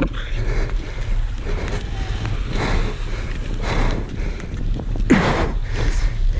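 Wind buffeting a body-worn microphone with a steady low rumble. Several short breathy bursts come every second or so, the loudest about five seconds in with a brief falling tone.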